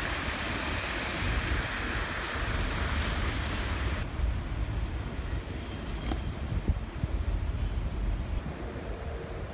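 Road traffic noise: a steady low rumble of vehicles, with a hiss over it that cuts off suddenly about four seconds in.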